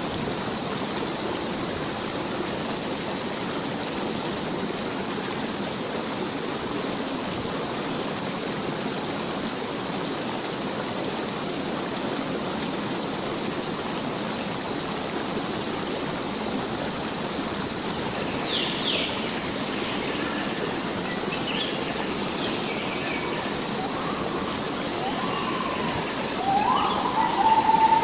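Stream water flowing steadily. From about two-thirds of the way in, short chirping calls sound over it, and a louder held call comes near the end.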